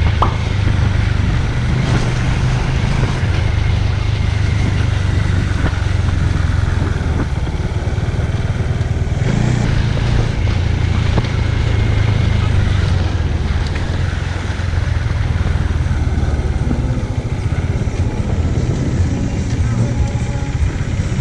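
Bajaj Dominar single-cylinder motorcycle engine running at road speed under heavy wind rush on the microphone, a steady low drone with hiss.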